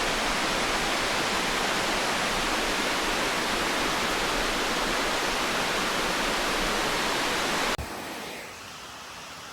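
Water pouring over a dam, a steady rushing of falling water that cuts off abruptly near the end, leaving a much quieter background.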